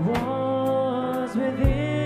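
A man singing a pop song live into a handheld microphone, over instrumental accompaniment with a drum beat.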